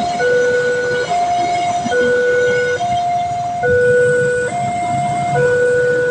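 Railway level-crossing warning siren sounding a loud two-tone alarm: a higher note and a lower note alternate steadily, each held a little under a second.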